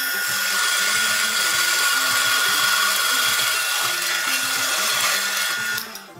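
Drill press boring into a block of wood: a steady motor whine with the rushing noise of the bit cutting, which stops sharply just before the end.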